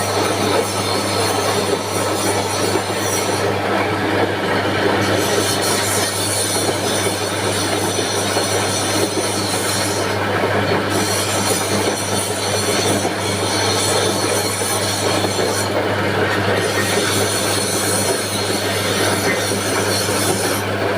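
Electric pipe-threading machine running steadily, the die cutting a thread on a galvanized iron pipe: a constant motor hum under a harsh metal scraping and squealing whose hiss briefly drops out about every six seconds.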